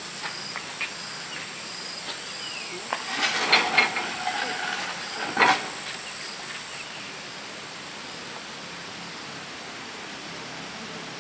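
Steady outdoor hiss with insects chirping: a repeated high chirp and a high steady whine that fades out about two-thirds of the way through. A brief cluster of knocks and clattering sounds comes a few seconds in, ending in one sharp knock.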